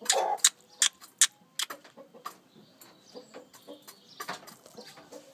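Aseel rooster giving a short, low cluck at the start, over a run of sharp ticks, about three a second, that fade after a second or so; fainter scattered ticks follow.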